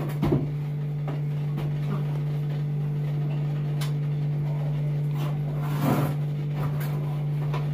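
A steady low hum with a few faint clicks and knocks.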